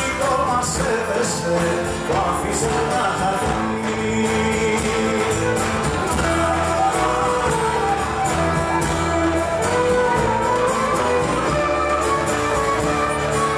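Live song: a man singing at the microphone while strumming an acoustic guitar, with other instruments accompanying him.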